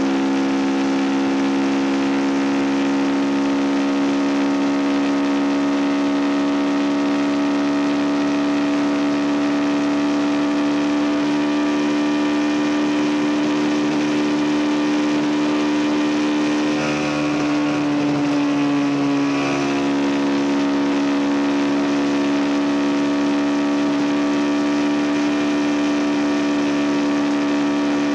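CF Moto NK 250's single-cylinder engine running at steady revs while cruising, holding one pitch, with a brief dip and recovery in pitch about two-thirds of the way through.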